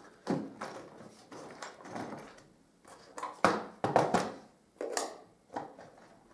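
Hard plastic toolbox tray being lifted and moved about in the box: a string of plastic clunks and short scrapes, the loudest two a little past the middle.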